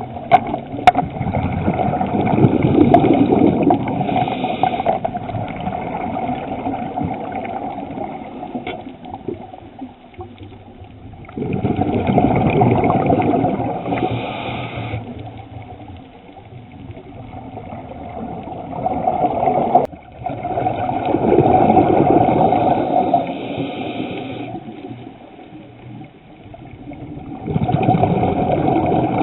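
Scuba diver breathing through a regulator underwater: bubbling, gurgling rushes of exhaled air about every eight to nine seconds, with quieter stretches between breaths.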